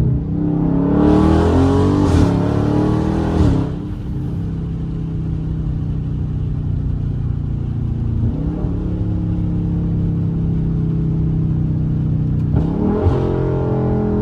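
Dodge Charger Scat Pack's 6.4-litre (392) Hemi V8, breathing through a JLT cold air intake, accelerating hard with rising pitch and a gear change about two seconds in, then cruising steadily at lower revs, and pulling hard again near the end.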